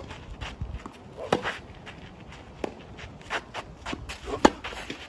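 Tennis racket striking the ball twice, about three seconds apart, the second hit the loudest, with footsteps and shoes scuffing on a clay court and a few lighter knocks in between.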